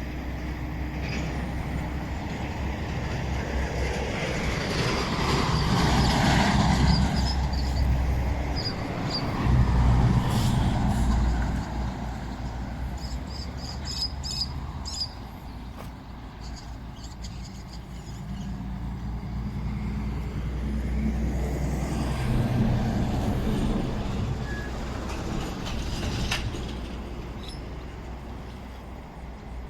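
Road traffic: motor vehicle engines rumbling as they pass, swelling twice, with short bird chirps over the top.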